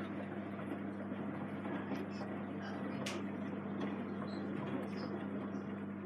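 Samsung eco bubble WW90J5456FX front-loading washing machine washing on its Daily Wash programme: a steady motor hum under the sloshing of soapy water in the turning drum. A few faint clicks, with one sharper click about three seconds in.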